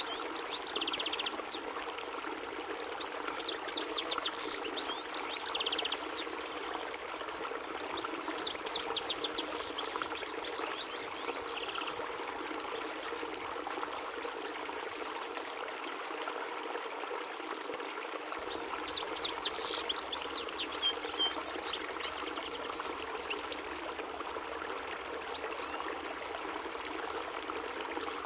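European goldfinch singing in four bursts of rapid, tinkling twitter, with long gaps between them, over a steady rushing noise.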